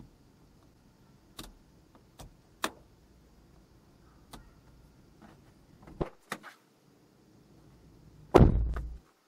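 Several sharp plastic clicks from the overhead room lamp's switch and cover as they are pressed, the lamp now fitted with an LED. Near the end, a single heavy thump that is the loudest sound and stops abruptly.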